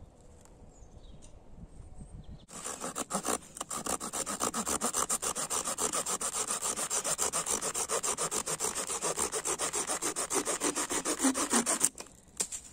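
Silky Pocketboy 130 folding saw cutting through a thin branch with rapid, even back-and-forth strokes. The sawing starts about two and a half seconds in and stops abruptly near the end as the branch is cut through.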